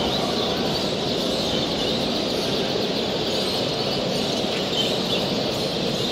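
Many caged canaries chirping and singing at once, a dense steady chorus, over a constant low background din.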